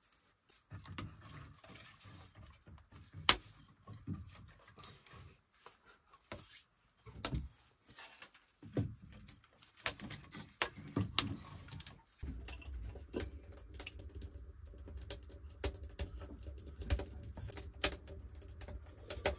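Wood fire crackling in a brick stove's firebox, with clicks and knocks as splints of kindling are laid on. About twelve seconds in, a steady low rumble comes in under the crackling.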